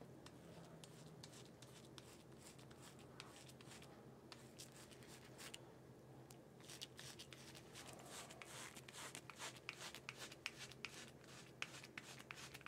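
Faint scratchy rasp of a five-blade cartridge razor cutting lathered stubble in short strokes, sparse at first and coming thick and fast in the second half.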